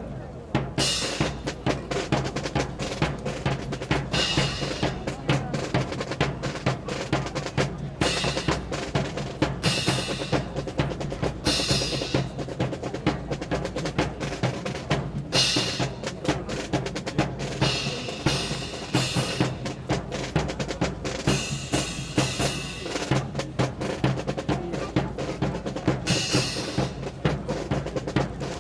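Drum-led marching music: a continuous snare drum rhythm and rolls over bass drum, with cymbal crashes that recur every two seconds or so.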